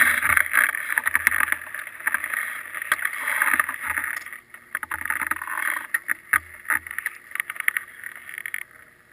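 Wind buffeting a GoPro's microphone as it lies in the snow, a rushing noise with gusty low rumbles that eases about four seconds in, mixed with scattered clicks and knocks from skis and gear close by.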